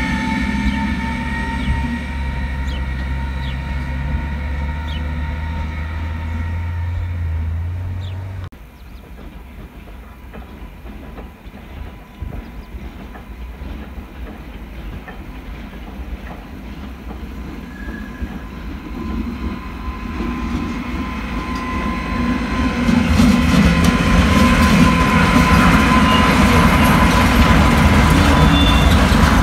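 An electric locomotive passes close by with a deep rumble and a steady, slightly falling electric whine. The sound breaks off sharply about 8 seconds in. After a quieter stretch, a freight train of car-carrier wagons comes by on the near tracks: steel wheels rolling and clattering over the rail joints, with a thin wheel squeal, loud from about two-thirds of the way through.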